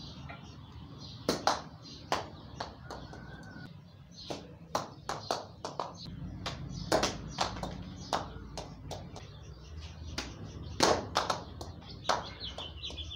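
Irregular sharp taps and knocks, single and in quick pairs, from a wooden staff striking target poles and balls.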